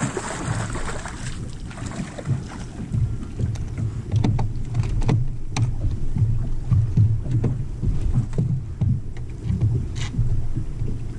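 Wind buffeting the microphone on an open bass boat, a gusty low rumble, with a hissing gust in the first second and a half. Scattered sharp clicks and knocks sound over it, the clearest about four, five and ten seconds in.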